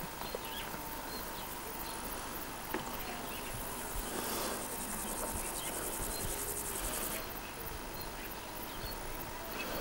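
Insects stridulating in a high, rapid pulsing trill, louder for about three seconds in the middle.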